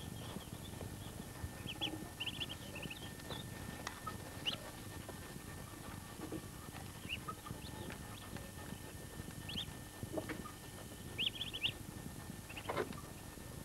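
Muscovy ducklings peeping: short, high peeps, several in quick runs, coming every few seconds over a low steady rumble.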